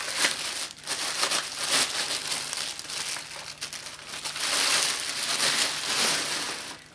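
Clear plastic bag crinkling and rustling as it is pulled off a vacuum cleaner's power head. The crackles are continuous and grow loudest about two-thirds of the way through.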